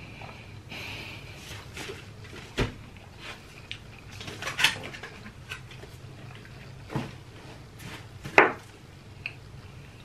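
Black plastic takeout container and metal fork being handled: a handful of separate sharp plastic clicks and knocks, the loudest near the end.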